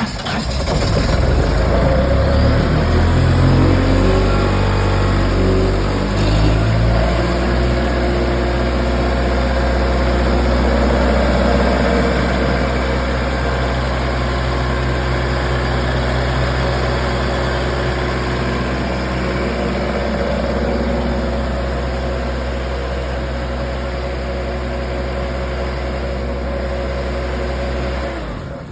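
Diesel engine of a 2005 Sullair 185DPQ portable air compressor catching and running, its pitch wavering and unsettled for the first several seconds before it settles into a steady run. It shuts down near the end.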